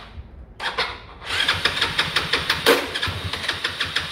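Yamaha Cygnus 125 cc single-cylinder scooter engine being cranked: a short burst, then a longer run of rapid, even beats from about a second in, with one louder crack near the middle. It turns over but doesn't catch: the rebuilt engine still won't start, for no cause yet found.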